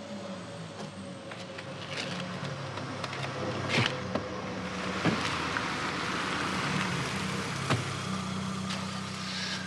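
A car engine running steadily, with three sharp knocks from the car's doors a few seconds apart as the driver gets in.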